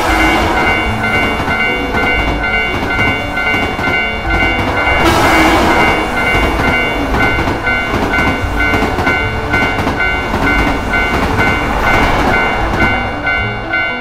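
A train passing, a steady rush of rail and wheel noise that swells about five seconds in and dies away near the end, over the repeating ding of a Japanese railroad crossing alarm. Light background music runs underneath.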